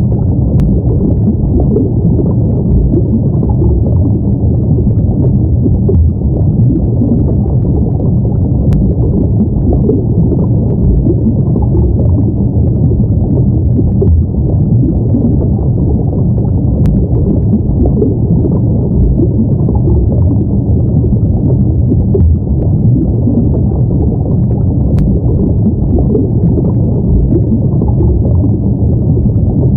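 Steady, low underwater ambience: a deep, even rumble of water with no distinct events, and a faint click about every eight seconds.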